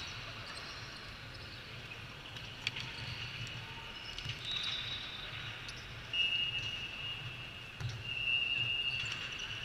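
Echoing ambience of an indoor volleyball hall between rallies: distant voices, a few ball thuds and brief high-pitched squeaks over a steady low rumble.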